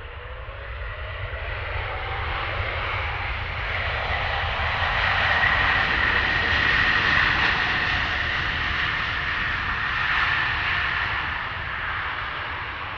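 Airbus A220-300 jet engines (Pratt & Whitney PW1500G geared turbofans) on the landing roll: a rushing roar with a steady high whine that swells to its loudest about halfway through as the airliner passes, then fades.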